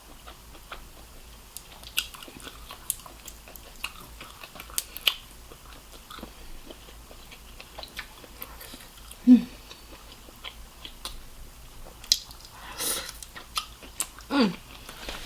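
Close-miked chewing and biting while eating seafood-boil shrimp, with scattered wet smacks and clicks of the mouth. Twice a brief hum, once midway and once near the end.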